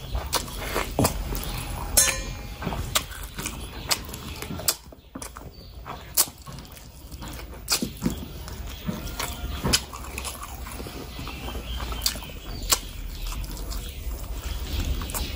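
Close-miked chewing and lip-smacking of a person eating curry and rice by hand, with wet mouth clicks coming at irregular intervals.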